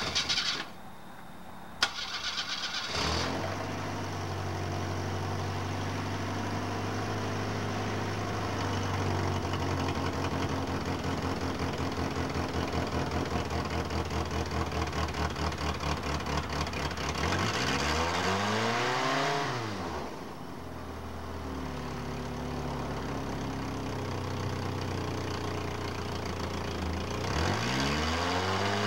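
1985½ Mercury Lynx four-cylinder engine, after a couple of clicks, cranked briefly and catching. It runs with an uneven, pulsing idle that is the misfire the owner is showing. It is revved up and back down about two-thirds of the way through and again near the end.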